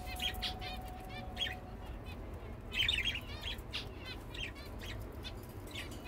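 Small pet birds chirping in short, scattered calls, with a busier cluster about three seconds in, over a low steady rumble.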